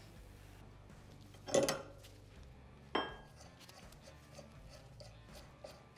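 Metal parts clinking on a workbench while a fork cartridge is worked on: a short clatter about a second and a half in, a sharp ringing clink about three seconds in, then faint light ticks as a nut is turned off the cartridge rod.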